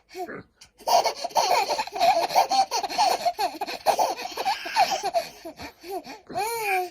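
Baby laughter: a baby laughing hard in quick, high-pitched bursts, with a short break about half a second in and a longer squeal that rises and falls near the end.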